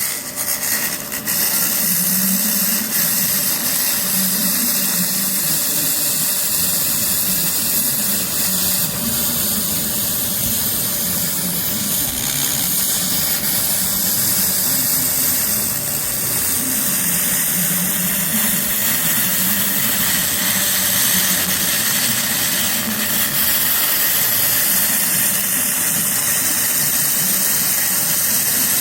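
A 200 W pulsed laser cleaner running steadily as it ablates hardened oil deposits from metal: a continuous sizzling hiss over a constant hum, starting abruptly.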